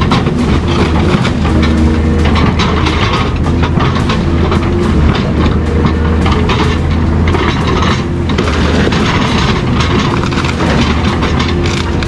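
Loud, continuous metal clanking and clattering: dense irregular knocks over a steady low hum.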